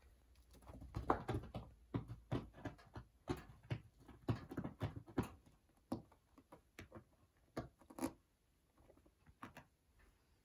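A long-haired cat scuffling and pawing among wrapped presents under a Christmas tree: a quick, irregular run of short taps, scratches and rustles. The sounds thin out over the last few seconds.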